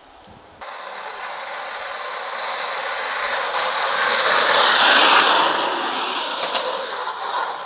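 Wooden carruzzuna cart rolling fast down an asphalt street on its ball-bearing wheels: a grinding rattle that starts suddenly, grows louder as it approaches, peaks about five seconds in with a falling pitch as it passes, then fades.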